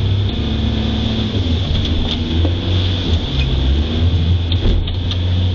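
Aluminium boat under way through choppy sea, its engine running in a steady low drone with a thin high whine over it.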